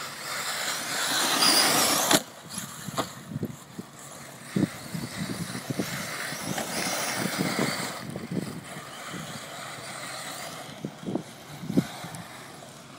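Radio-controlled off-road cars running on a dirt track: a rough hiss that swells and fades as they pass, loudest in the first two seconds, with a few sharp knocks, the strongest about two seconds in.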